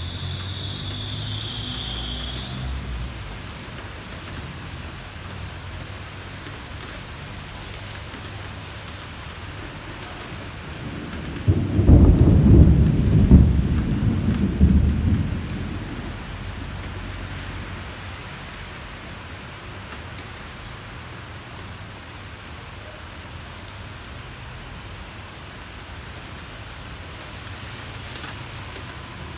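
Steady heavy rain, with a roll of thunder about twelve seconds in that rumbles low and loud for some four seconds before dying away. A high-pitched squeal fades out in the first couple of seconds.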